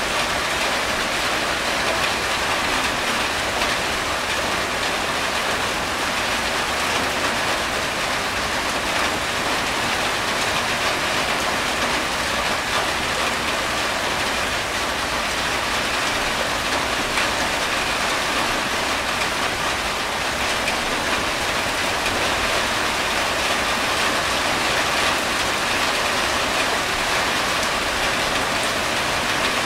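Rain falling steadily on a corrugated tin roof, a dense even patter with no letup.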